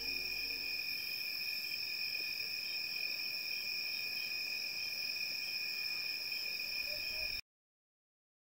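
Insects calling in a steady, continuous high-pitched drone. The tail of soft music fades out within the first second, and the sound cuts off abruptly about three-quarters of the way through.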